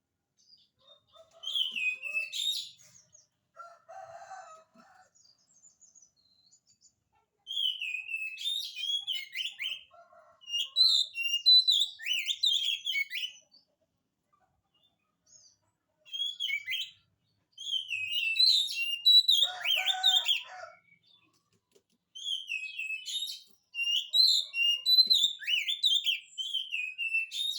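Oriental magpie-robin singing: four bouts of quick, varied whistled and chirping phrases, each a few seconds long, with short pauses between them.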